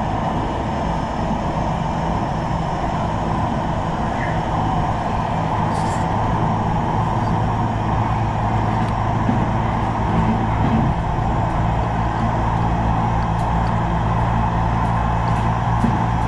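Running noise inside a Manchester Metrolink Bombardier M5000 tram travelling at speed: a steady rumble of wheels on the rails with an even, low motor hum.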